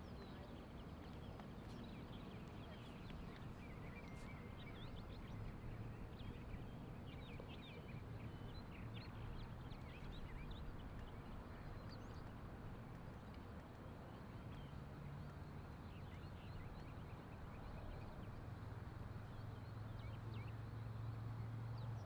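Faint outdoor ambience: a steady low hum and hiss with scattered bird chirps throughout.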